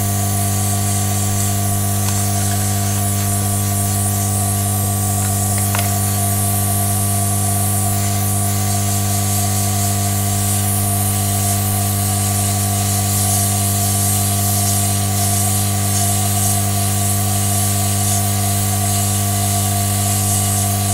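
Hot air rework station blowing steadily onto a flash memory chip to melt its solder for removal: an even hiss of air with a steady hum under it.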